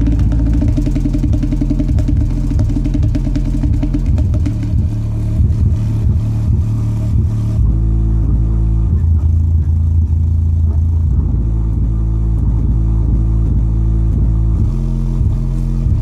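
Subwoofer playing loud, bass-heavy music: deep bass notes pulse in a rhythm and shift every few seconds.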